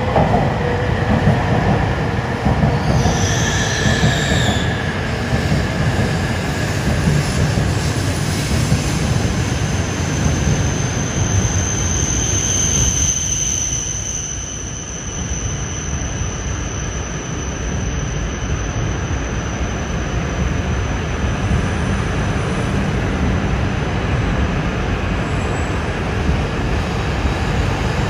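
E6 and E5 series Shinkansen train pulling into the station past the platform at low speed, a steady rumble of wheels and running gear. High squealing tones come in around three seconds in and again around twelve seconds in.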